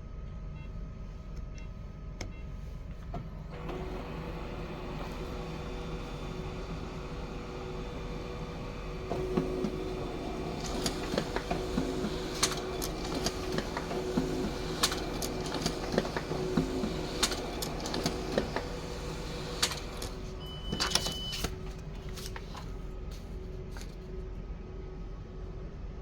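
Ricoh MC 251FW colour laser printer running, its motors and rollers humming steadily with a string of sharp clicks as it feeds a page. A short high beep sounds about twenty seconds in.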